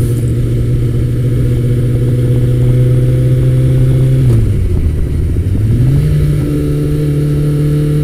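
Kawasaki ZX-14R's inline-four engine running steadily while riding. About four seconds in the revs dip, then climb to a higher steady pitch.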